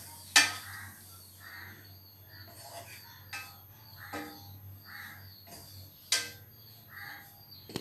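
A plastic spatula stirring grated coconut as it dry-roasts in a nonstick kadai: quiet stirring with about five sharp taps of the spatula against the pan.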